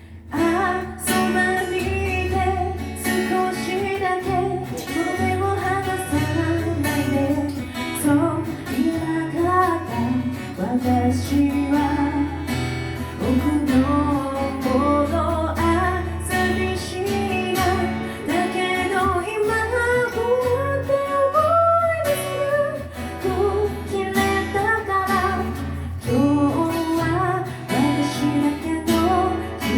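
Live acoustic guitar music: strummed chords and low bass notes, with a melody line gliding up and down over them. It starts about half a second in.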